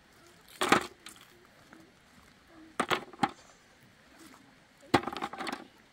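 Loose stones knocking sharply against each other as they are picked up and gathered by hand: a few separate clacks, one about a second in, a couple around three seconds, and a quick cluster near the end.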